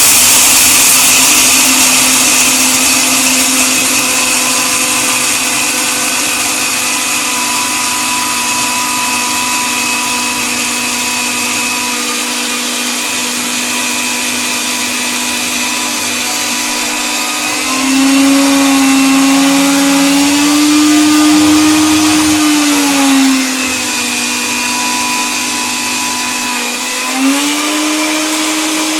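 Electric coffee grinder running: a steady motor whine with a hiss over it. About two-thirds of the way through, the pitch rises and wavers for several seconds, then settles back; near the end it rises again and holds.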